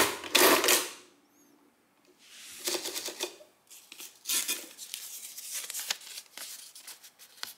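Astra Class 0 mechanical adding machine cycled by a pull of its hand lever: two quick mechanical strokes within the first second as it prints the total and clears. Then, from about two seconds in, its paper tape rasping and crinkling as it is pulled out and torn off the roll.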